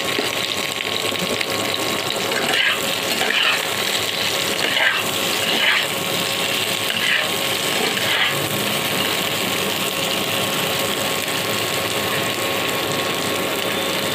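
Eggplant pieces sizzling as they fry in oil in a pan, a steady hiss. A steel spatula scrapes and turns them about six times between two and eight seconds in.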